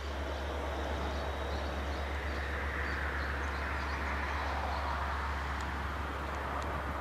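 Push-pull Intercity train starting off on wet rails: a steady rumble with faint, intermittent high squeals. The uploader puts the squeal at the start down to the Cityshuttle control car, whose brake is probably still applied.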